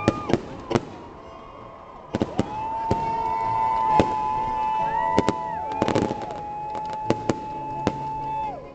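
Fireworks display: a dozen or so sharp bangs of bursting shells at uneven intervals, with a quick cluster of crackles about six seconds in. A steady high whistle comes in about two seconds in and holds until just before the end.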